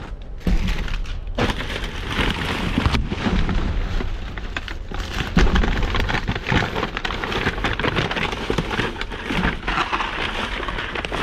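Trash bags and boxes being rummaged through in a dumpster: continuous rustling and crinkling with frequent knocks, over a low rumble.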